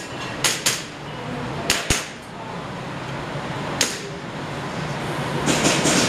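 Airsoft pistol shots: two quick pairs of sharp pops, a single shot a couple of seconds later, then a fast string of five or six shots near the end.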